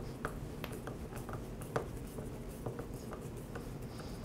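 Faint, irregular small clicks and creaks of a Torx screwdriver turning a screw into a string trimmer's plastic handle, over a steady low hum.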